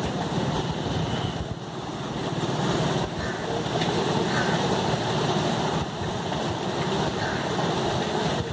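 Steady outdoor rush of a flowing river and wind on the microphone.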